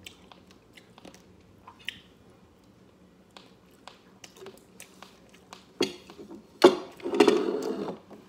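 Close-up chewing and mouth sounds of someone eating scorched, crispy rice, with small scattered clicks. About six and a half seconds in comes a sharp click, then a louder noisy stretch of about a second.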